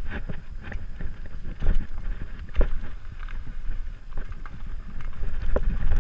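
Mountain bike descending a dirt forest trail: tyres rumbling over the ground, with frequent sharp clatters and knocks as the bike jolts over roots and rocks, and wind buffeting the camera microphone.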